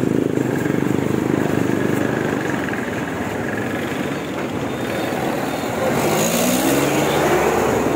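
Street traffic: motor vehicle engines running, with one engine revving up in a rising pitch about six seconds in.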